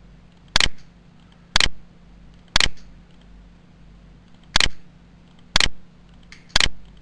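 Sharp single clicks at a steady pace of about one a second, six in all, with one beat skipped near the middle, over a faint steady hum.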